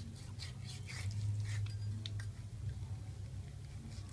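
A steady low hum, with scattered light clicks and rustles over the first two seconds or so.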